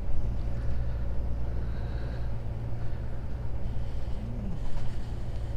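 Truck's diesel engine running steadily while driving, heard inside the cab as a constant low drone.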